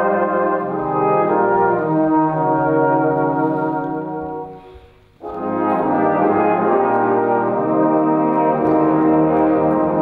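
Brass band playing sustained chords. About halfway the music dies away to a brief pause, then the full band comes straight back in.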